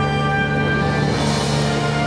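Background music of sustained, held tones at a steady level.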